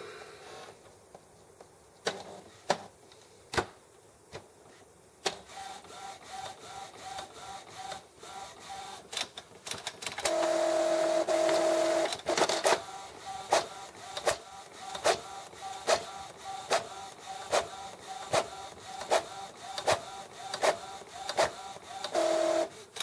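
Epson XP-950 inkjet printer printing a colour copy with its lid open: the printhead carriage shuttles back and forth with regular clicks, about two a second, and a motor whines steadily for a couple of seconds about ten seconds in and again briefly near the end. The first few seconds hold only a few scattered clicks before printing gets going.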